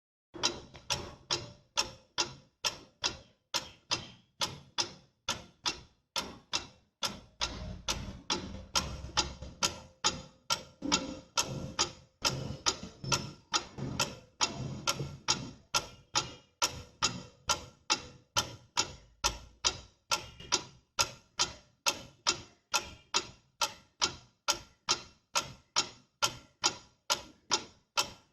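Pendulum clock ticking steadily, about two ticks a second.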